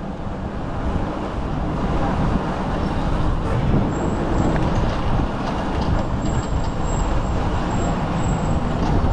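Wind buffeting the microphone and road rumble from a moving electric scooter in street traffic, a steady rushing noise heavy in the low end. A faint high-pitched whine comes and goes in the second half.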